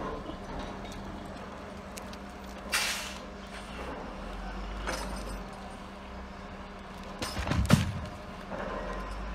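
Log Champ LC550 swing yarder's diesel engine running steadily, with a short hiss about three seconds in. Near the end there is a louder clattering burst as the grapple drops the log.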